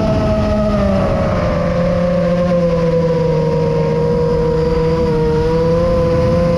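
An iFlight Chimera 7 FPV quadcopter's motors and propellers whining in flight, with wind noise on the onboard microphone. The whine drops in pitch over the first two seconds as the throttle eases, then holds fairly steady with small wobbles.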